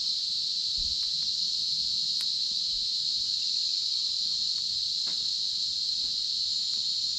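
Cicadas singing in an unbroken chorus, one steady high-pitched drone, with a few faint clicks over it.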